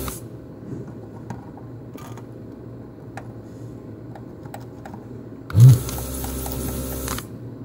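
Vacuum desoldering tool (Pace SOLDR-X-Tractor on its station's pump) at work on a circuit-board pin. The suction cuts off at the start, and a few faint clicks follow while the heated tip rests on the pin. About five and a half seconds in, the pump switches on with a thump and hisses for under two seconds as it sucks the melted solder out of the hole, then stops.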